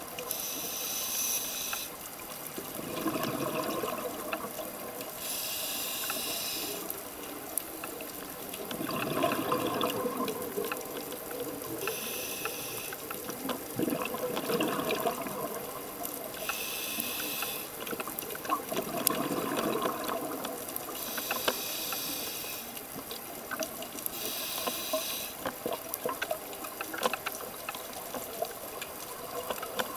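Scuba diver breathing through a regulator underwater: a hissing inhale every four to five seconds, each followed by a rush of exhaled bubbles.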